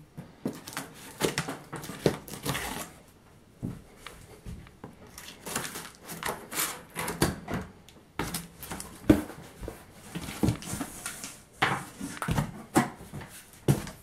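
Cardboard box being opened by hand: irregular rustling, scraping and knocking as the tape on the top is pulled and the flaps are opened.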